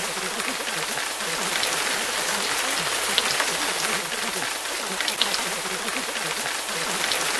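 Steady rain, an even hiss with scattered drop taps, over a faint wavering murmur low beneath it.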